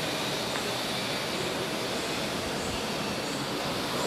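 Steady city street background noise: a continuous even hum and hiss with no distinct events.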